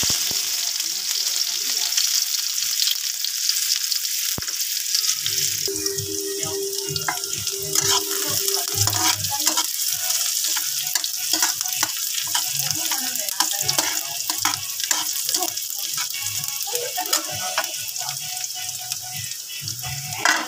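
Chopped onions sizzling in hot cooking oil in a wok, a steady loud hiss that starts the moment they go in. From about five seconds in, a metal spoon and spatula stir them, scraping and knocking against the pan.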